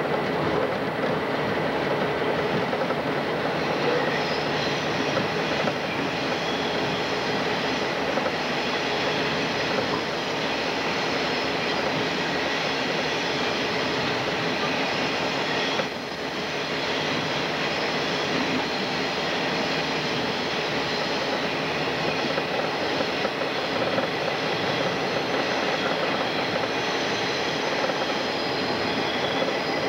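Diesel locomotive running along the line, heard from its front platform: steady engine and rail noise, with thin wheel squeal as it rounds the curves.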